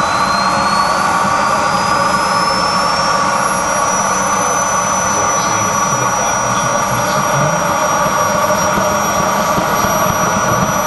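Two MW44 model jet turbines in a radio-controlled Horten Ho 229 flying wing running on the ground. A high turbine whine rises in pitch over the first four seconds or so, then holds steady over constant jet noise.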